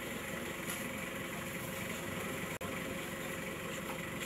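A vehicle engine idling steadily, with a momentary gap about two and a half seconds in.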